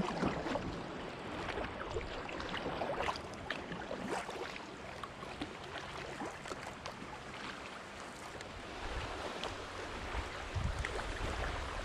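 Kayak paddling: a double-bladed paddle dipping and splashing with irregular drips, and water lapping against the hull. From about nine seconds in, low wind rumble on the microphone joins it.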